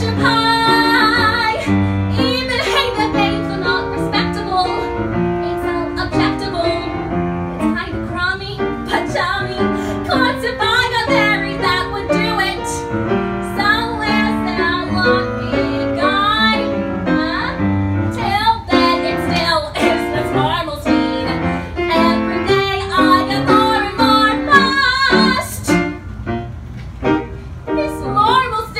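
Woman singing a Broadway show tune into a microphone, accompanied by piano.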